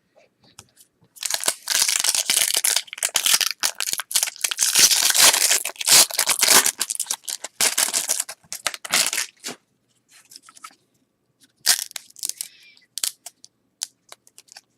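Trading-card pack wrapper being torn open and crumpled, a dense crinkling from about a second in until about nine and a half seconds. Then scattered light clicks and rustles of the cards being handled.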